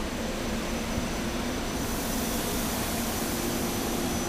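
SEPTA Silverliner IV electric railcar moving past the platform: a steady electric hum from its motors and blowers under wheel-on-rail noise, with a hiss that grows louder about two seconds in.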